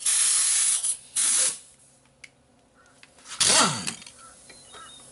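Pneumatic tool on an air hose hissing in two bursts of air, the first about a second long and the second shorter, then a third short burst a little past halfway with a falling pitch, as the tool works the mower's blade bolt.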